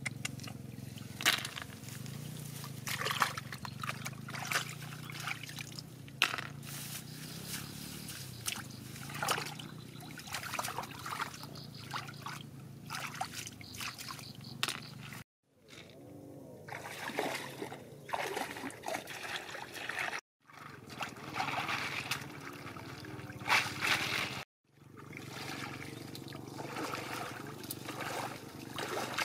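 Hands sloshing and splashing in shallow muddy pond water, with trickling and irregular splashes as the water is groped through and stirred; near the end, legs wading through the water. The sound cuts out briefly three times.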